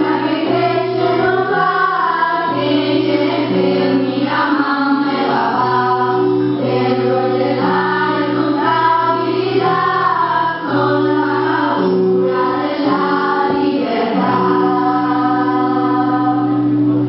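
Music: a song sung by a group of voices over long held low notes.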